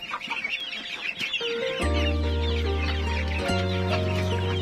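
A flock of hens clucking and chattering steadily as they feed, in many short, high calls. Background music with a low bass line comes in about two seconds in and is the loudest sound from then on.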